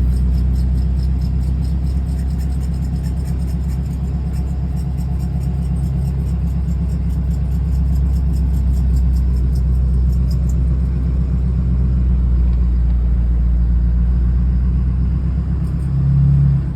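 A 6.7-litre diesel truck engine running steadily with a low rumble. A fast, even, high-pitched ticking rides over it and stops abruptly about ten seconds in. The engine sound cuts off at the very end.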